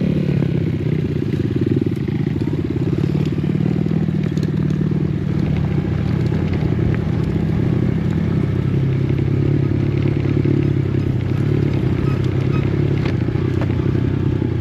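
Dirt bike engine running steadily, its pitch shifting slightly up and down with the throttle.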